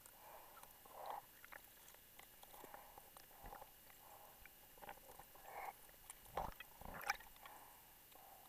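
Faint underwater handling noises from a diver's gear and line reel, heard through a camera's underwater housing: scattered soft clicks, knocks and gurgles, with two louder thumps about six and seven seconds in.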